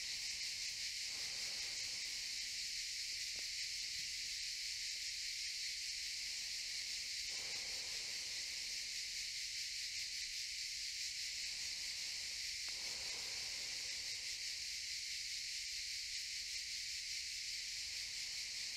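Cicadas buzzing in a steady, high-pitched chorus that never breaks.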